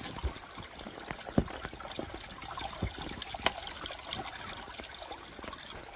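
Running water trickling steadily, with a few sharp clicks and knocks, the clearest about a second and a half in and again about three and a half seconds in.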